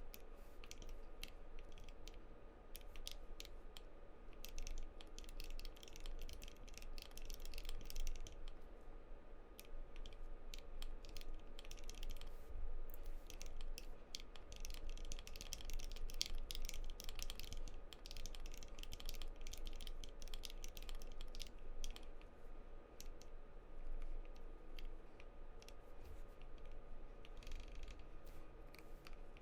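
Custom mechanical keyboard being typed on continuously, many key clicks a second, thinning out for a few seconds about a third of the way through. A faint steady hum sits underneath.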